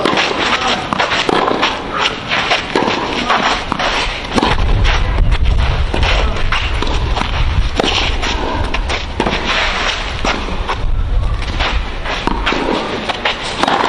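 Tennis rally on a clay court: repeated sharp pops of racket strings striking the ball, with shoes scraping and stepping on the clay between shots. A low rumble comes in about four seconds in and fades out a few seconds before the end.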